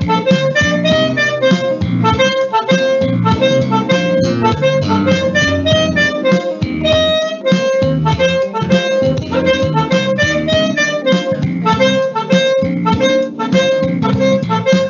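Alto saxophone playing a melody of held and repeated notes over a chordal backing track.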